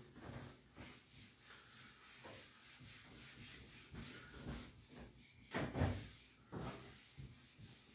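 Felt whiteboard eraser wiping across a whiteboard in uneven strokes, faint, with a few louder swipes or knocks against the board, the loudest about five and a half seconds in.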